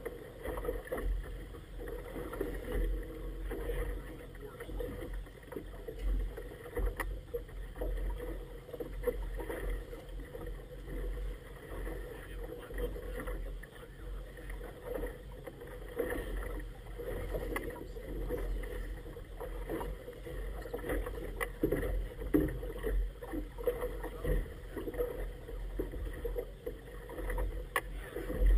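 Choppy river water slapping and splashing against a small inflatable boat's hull, with wind rumbling unevenly on the microphone.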